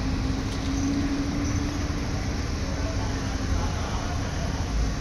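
Steady low rumble of an engine running, with a constant hum.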